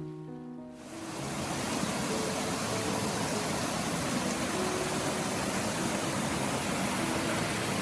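Spring water rushing in a steady, even stream that comes in about a second in, as music fades out.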